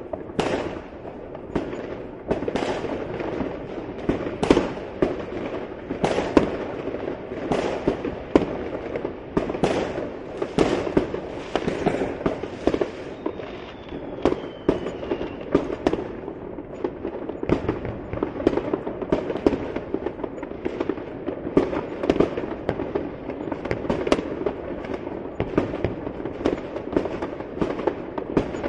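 Fireworks going off continuously: many sharp bangs and pops, several a second with bigger reports among them, over a steady crackle of distant and overlapping explosions.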